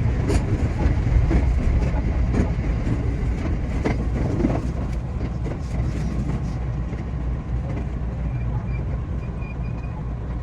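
A JR West 227 series electric train running on the line: a steady low rumble of wheels on rail. Wheel clicks over rail joints come through in the first half, and the running is smoother after that.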